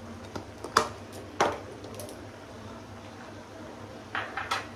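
A few short light clinks and knocks of metal kitchen utensils against cookware, about five spread over several seconds, over a low steady hum.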